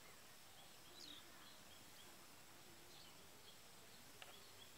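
Near silence: faint outdoor ambience with scattered short, faint bird chirps, and a single faint click about four seconds in.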